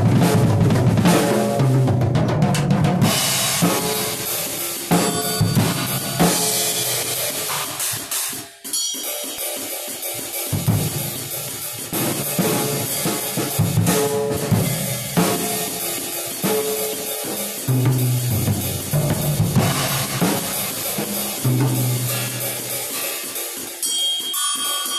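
Acoustic drum kit being played: bass drum, snare, toms and cymbals. Near nine seconds in the sound briefly drops out.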